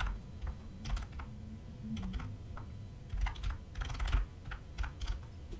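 Typing on a computer keyboard: irregular keystroke clicks in short flurries separated by brief pauses.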